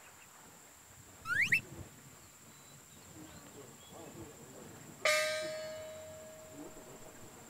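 A single bell-like chime struck about five seconds in, clear-pitched and ringing away over a couple of seconds. It comes after a short rising whistle about a second in.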